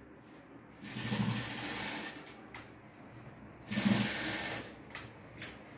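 Two bursts of scratchy rustling and scraping from stiff jute handbags being handled and moved close to the microphone, followed by a couple of light knocks.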